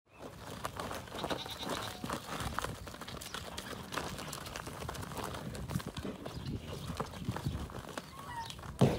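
Two young bull calves, a Highland and a Holstein, play-fighting in dirt: hooves scuffing and stamping, with knocks as their heads meet, and a few short animal calls.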